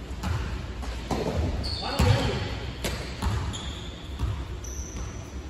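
Scattered thuds on an indoor gym court's hard floor, the loudest about two seconds in, with a few brief, high sneaker squeaks.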